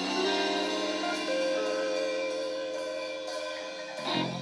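A live band's last chord ringing out on guitars with cymbals washing over it, slowly fading as the song ends. There is a brief louder burst near the end.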